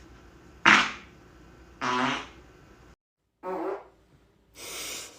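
A string of four farts: a sudden loud one, then a longer buzzy one with a clear pitch, then a shorter buzzy one and a long airy hiss near the end.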